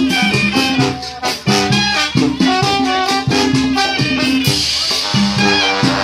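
Mexican brass banda playing live: trombones, clarinets and a tambora bass drum over a bouncing bass line, with sharp percussion hits on the beat. About four and a half seconds in, the band moves into a long held brass chord.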